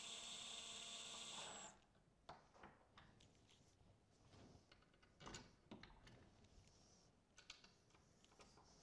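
Cordless drill-driver running steadily as it drives a screw through a brass rim-lock keep into a wooden door frame, stopping suddenly about a second and a half in. After it stops there are faint scattered clicks and taps.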